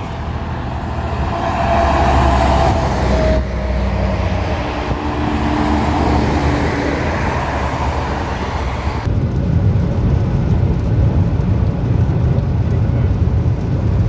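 Highway traffic passing: trucks and cars going by, with a steady tone from one passing vehicle a couple of seconds in. About nine seconds in it changes abruptly to the steady low rumble of road noise inside a moving car.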